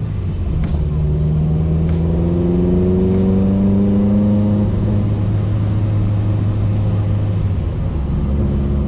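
A Mitsubishi Lancer's engine and exhaust heard from inside the cabin while driving. The engine note climbs steadily for about four seconds as the car accelerates, then settles into a steady low drone.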